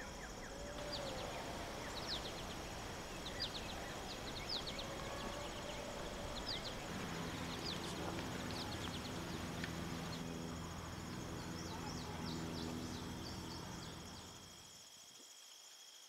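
Outdoor birdsong: short, high chirps scattered through, over a steady high insect trill. A low steady hum joins about halfway, and the sound drops away shortly before the end.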